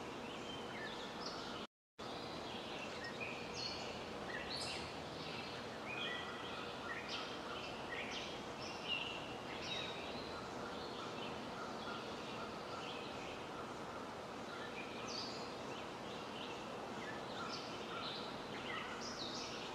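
Small birds chirping: many short, high calls scattered over a steady background hiss. The sound cuts out completely for a moment just before two seconds in.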